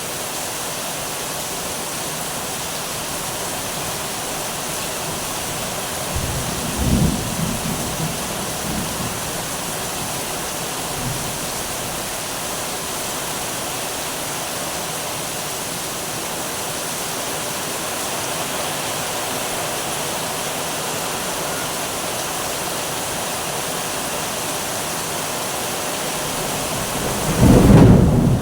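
Steady heavy rain falling, with a roll of thunder about six seconds in and a louder thunderclap rumbling near the end.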